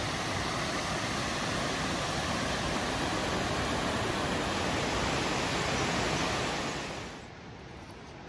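Steady rushing roar of a tall waterfall plunging over a cliff. About seven seconds in it drops away to a much quieter, duller hiss.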